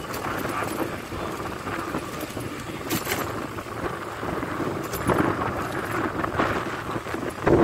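Wind buffeting the microphone over the running noise of a moving vehicle: an uneven rumble with a few light clicks.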